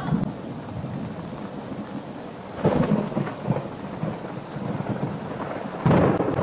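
A steady rushing hiss with two louder rumbling swells, about two and a half seconds in and near the end.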